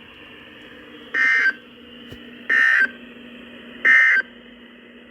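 Emergency Alert System end-of-message signal: three short bursts of buzzing digital data tones, each about a third of a second long and about a second apart, over a steady background hum. It marks the end of the broadcast alert.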